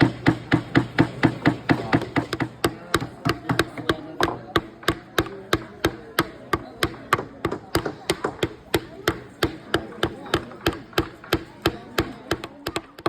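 Small hammer tapping rapidly and steadily on a wooden kit piece, about four strikes a second, as a part of a wooden toy excavator is hammered into place.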